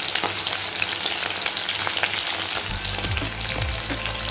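Battered prawns deep-frying in hot oil: a dense, steady sizzle full of small crackles and pops as the prawns spit in the oil, while a slotted spatula stirs them.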